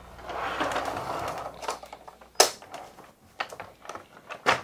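Hard plastic parts of a Tomica toy car carrier truck being handled: a scraping rustle for about two seconds, then a run of separate plastic clicks and clacks, two of them sharper and louder than the rest.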